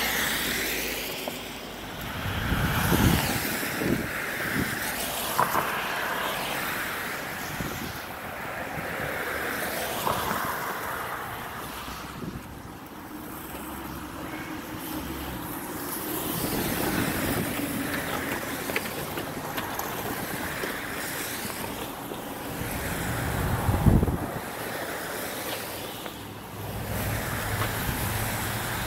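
Electric drive motor and gears of an RC4WD Beast 2 6x6 RC truck whirring in spells that rise and fall as it is driven, with its plastic plow blade scraping and shoving snow across pavement. A few louder knocks stand out, the loudest about 24 seconds in.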